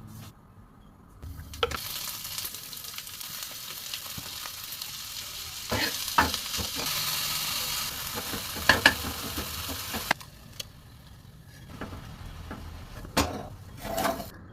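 Egg omelette frying in a pan: a steady sizzle, with a utensil clicking and scraping against the pan a few times. The sizzle dies down about ten seconds in, and a couple of knocks follow near the end.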